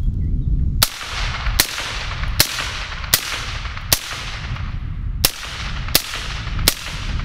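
Suppressed 7.62x39 AR-style rifle fired semi-automatically in quick succession: eight shots about three-quarters of a second apart, with a slightly longer pause midway, each followed by a long echoing tail.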